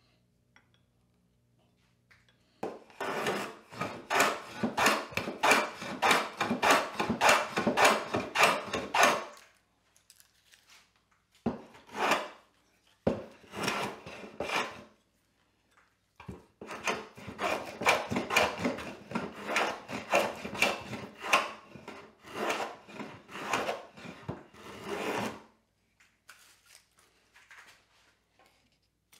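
Wooden plow plane cutting a groove along the edge of a board in quick, short, repeated strokes, each a brief scrape of the iron lifting a shaving. It goes in two long runs with a few single strokes between, starting about three seconds in.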